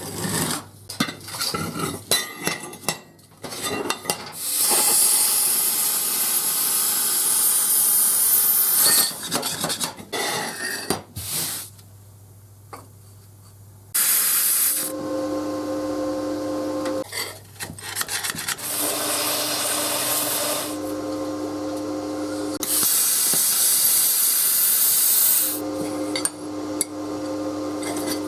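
Metalworking sounds: metal parts clinking and knocking, alternating with long stretches of harsh hissing and a machine running with a steady hum that starts and stops several times.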